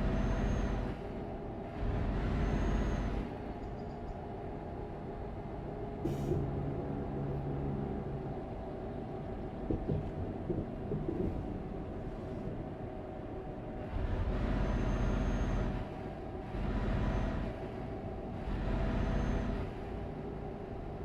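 Road vehicle running steadily with a constant low hum, and several louder swells of a second or so each.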